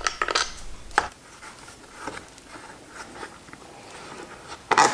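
Scattered light clicks and knocks of a motorcycle handguard's mounting bolt and clamp parts being worked loose and the plastic handguard being handled, with a louder clatter near the end.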